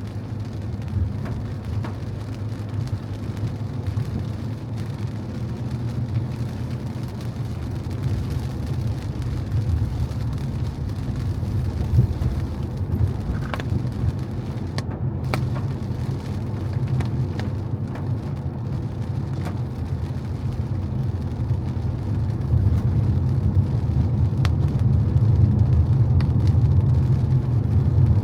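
A car driving on a wet road in the rain: a steady low rumble of engine and tyres under a hiss of rain and spray, with a few sharp ticks. It grows louder about three quarters of the way through.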